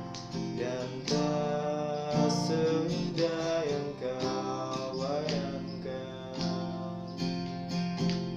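Acoustic guitar strummed in chords, with a new strum or chord change about once a second, and a man's voice singing over it.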